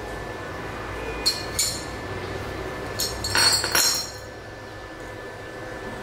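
Square steel tubing pieces clinking against each other and the tile floor as they are set down: two sharp clinks, then a short flurry of ringing metal clinks about a second long midway.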